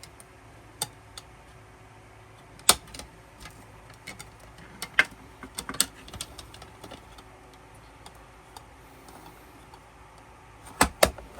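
Album packaging being handled: scattered sharp clicks and taps, with a louder pair of clicks near the end.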